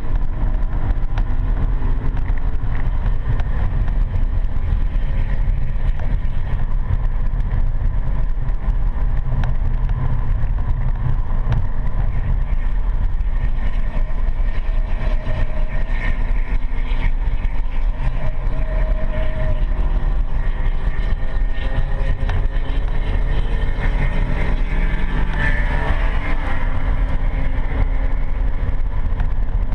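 BMW M3 E92's V8 engine and road noise heard from inside the cabin, largely buried under a heavy low rumble and vibration picked up by a camera fixed to the seat. Faint engine tones rise and fall as the car drives on.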